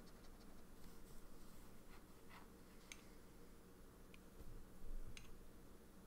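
Near silence: quiet room tone with a few faint light ticks and a soft low thump about five seconds in.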